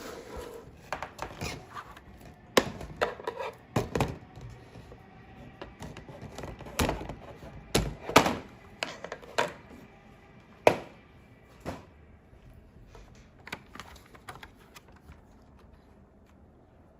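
Hands unboxing a doll: irregular taps, clicks and knocks of plastic and cardboard packaging being handled, with a few louder knocks about halfway through and quieter handling near the end.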